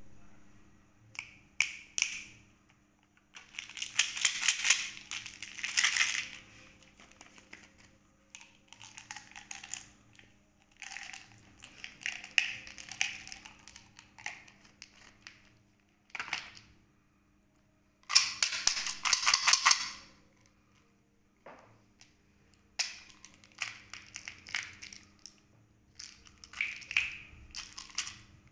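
Hands rummaging among wrapped Kinder Joy eggs and plastic candy toys in a plastic basket: bursts of plastic clattering and wrapper crinkling, a second or two each, with fast rattling clicks as the plastic capsules are handled.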